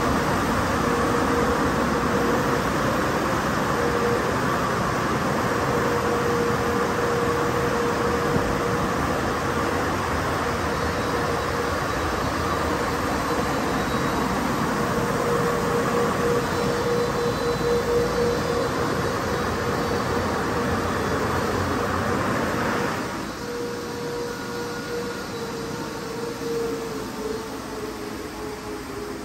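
MacNeil car wash blower dryers running: a loud rush of air over a steady motor hum. About 23 seconds in, the air noise drops off sharply, and near the end the hum starts to fall in pitch as a blower motor winds down.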